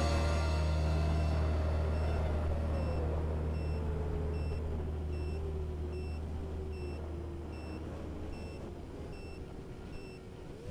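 Small FPV racing quadcopter's motors whining, their pitch wavering as the throttle changes, over a low held music note that fades out. A faint electronic beep repeats about every 0.7 s.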